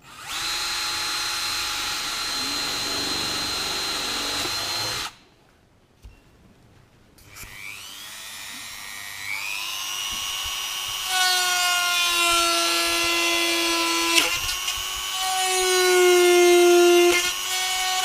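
Cordless drill running steadily as it bores a hole through an RC boat hull; it stops suddenly about five seconds in. About two seconds later a flexible-shaft rotary tool spins up with a rising whine and then runs steadily, enlarging the hole, getting louder toward the end.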